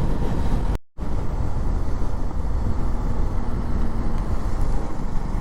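Motorcycle riding at road speed: a steady rush of wind over the action camera's microphone with the engine underneath. The sound cuts out briefly just under a second in.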